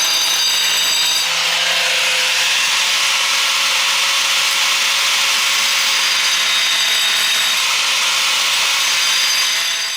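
Electric power cutter cutting through a ceramic tile: a steady high whine that turns into a loud grinding hiss about a second in as the blade bites, then stops just before the end.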